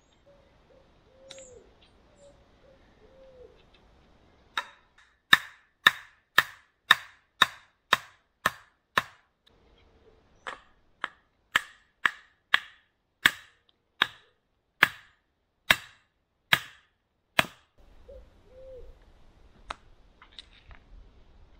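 A small hatchet chopping wood: about twenty sharp blows at roughly two a second, with a short pause about halfway. The chopping stops a few seconds before the end.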